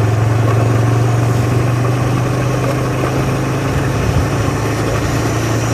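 Motorcycle engine, likely the TVS Apache 160 2V's single-cylinder, running at a steady speed while riding, with road and wind noise. The engine note holds one unchanging pitch throughout.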